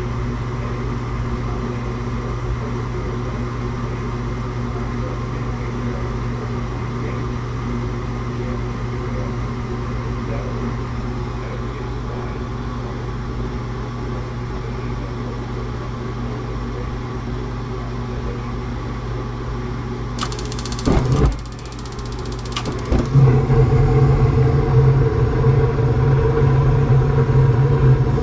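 Gas furnace running with a steady hum. About twenty seconds in, a sudden loud burst: the burners light late, with a startling bang. From there the furnace runs louder and steady with its burners lit.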